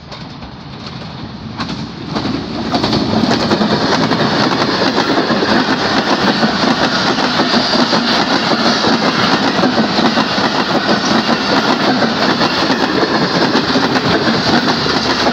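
Pakistan Railways passenger train passing at speed right beside the track: a rush of wheels on rail and rattling coaches that grows over the first two or three seconds as the train reaches the crossing, then stays loud and steady as the coaches stream by.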